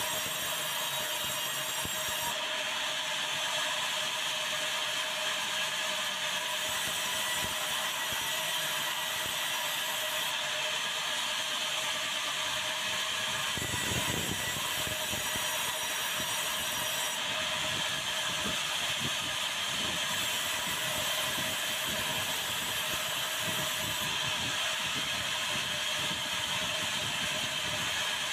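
Sawmill band saw running steadily and ripping white meranti planks into boards: a constant whirring cut with a steady hum. Occasional knocks come through, the loudest about halfway.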